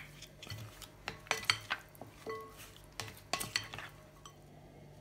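A black plastic spoon stirring raw chicken wings in egg-white and starch marinade in a glass mixing bowl, with irregular clinks and knocks against the glass. The stirring stops after about four seconds.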